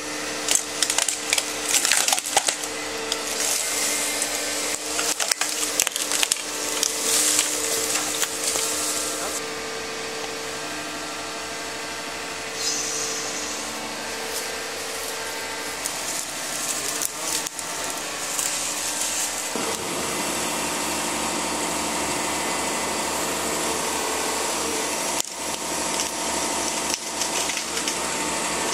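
Felling excavator with a Westtech felling grapple at work: the diesel engine and hydraulics run steadily under dense cracking, snapping and rustling of wood and branches as the grapple grips and drags felled trunks. The crackling is thickest in the first half, and the machine hum is steadier later on.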